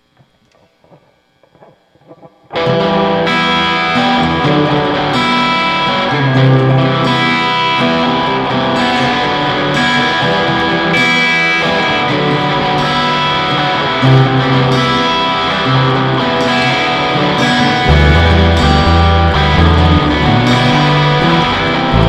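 Rock music with distorted electric guitar, starting abruptly about two and a half seconds in after a couple of seconds of faint quiet sounds.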